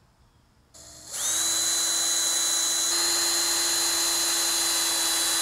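Ryobi cordless drill starting up about a second in and running steadily, a high whine with a fixed pitch, as it bores holes.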